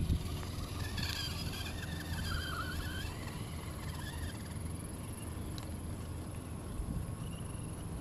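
Radio-controlled scale off-road truck's electric motor and gears whining, rising and falling in pitch with the throttle during the first three seconds, then fading. A steady low hum runs underneath.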